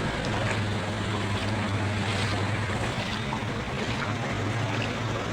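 An engine running steadily at an even speed, a low hum over a continuous rushing noise.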